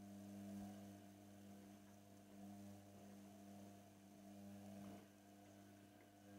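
Indesit washing machine giving a faint, steady electric hum with a slight rise and fall in level.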